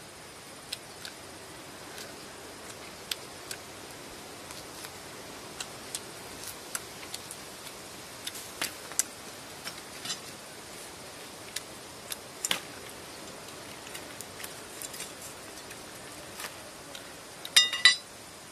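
Scattered sharp clicks and light taps over a steady hiss, with a brief loud clattering rattle near the end.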